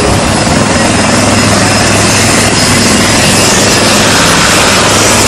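HAL Light Combat Helicopter running steadily, its main rotor turning and its twin Shakti turboshaft engines whining.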